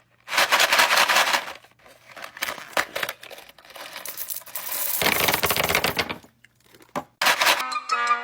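Toy packaging crinkling and tearing in several noisy bursts as it is unwrapped; music comes in near the end.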